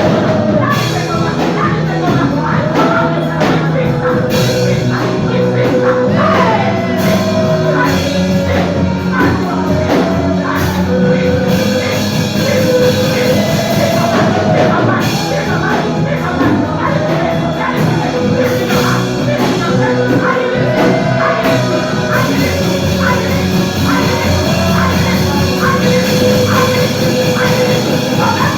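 Music with singing over a steady beat, the melody line wavering up and down throughout.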